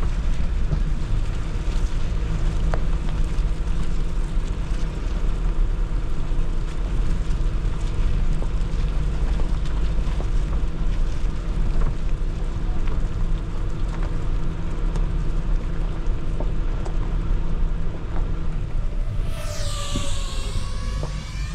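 Suzuki Jimny driving off-road: a steady low rumble of engine and tyres, with wind noise. Near the end a brief sound with a bending, falling pitch cuts in.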